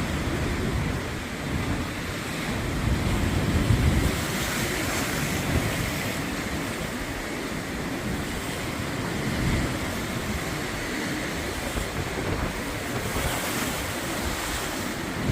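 Sea waves washing and breaking on the shore, in slow swells, with wind buffeting the microphone, heaviest about three to four seconds in.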